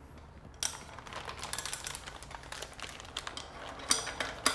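Bike parts and packaging being handled: a quick run of irregular light clicks, taps and rustling, starting about half a second in, with a sharper click near the end.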